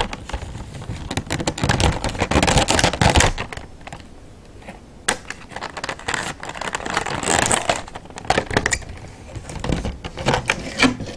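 Clear plastic blister packaging being handled and pried open by hand: crinkling and clicking plastic in several bursts.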